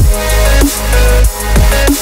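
Background electronic music with a heavy bass and a steady, repeating beat.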